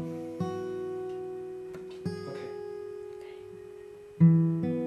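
Acoustic guitar playing slow strummed chords, each left to ring out and fade, with a new chord about every two seconds; the last one, near the end, is struck noticeably harder.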